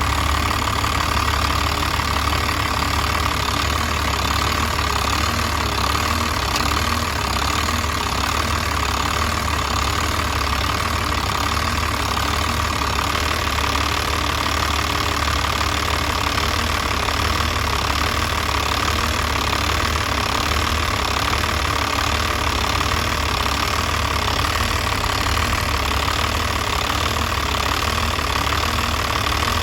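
Diesel engine with a Bosch VE rotary injection pump idling steadily with a rough idle, a fault that goes with a fuel leak at the VE pump.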